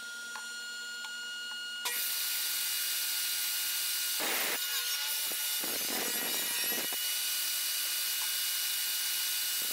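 Jobsite table saw running, then ripping a length of pine lengthwise about two seconds in: the steady hum of the motor and spinning blade gives way to a loud, even cutting noise that lasts to the end, as the piece is cut down to 3/4 inch thick.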